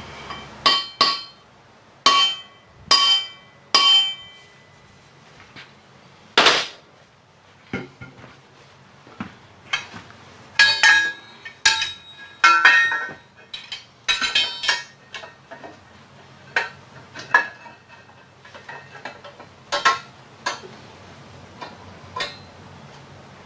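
Hammer blows on steel, each with a short metallic ring, struck to shock a seized, heated multi-groove pulley loose from its jackshaft. The blows come irregularly, a few in the first seconds and a quicker run of them about ten to fifteen seconds in.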